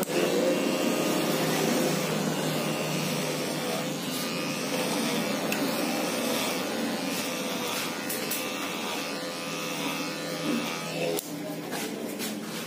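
Electric hair clipper buzzing steadily as it cuts hair over a comb (clipper-over-comb), with a few sharp clicks about eleven seconds in.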